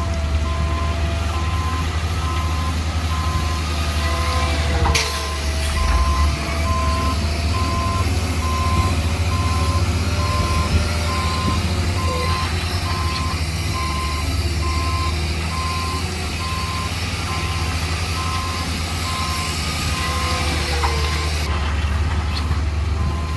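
A heavy construction vehicle's reversing alarm sounds in steady, evenly spaced beeps over the low, steady running of its engine.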